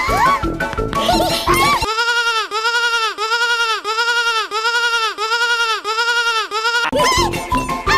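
Cartoon music for about two seconds, then a bleating-sheep sound effect takes over. It is one long bleat for about five seconds, wavering in pitch about twice a second. It cuts off suddenly as the music comes back near the end.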